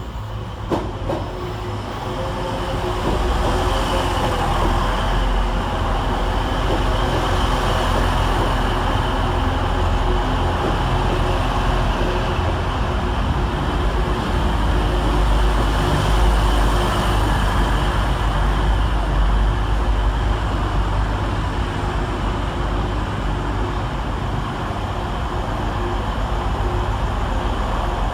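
Passenger train running along the line: a steady rumble of wheels and running gear with a low hum, and a brief click about a second in.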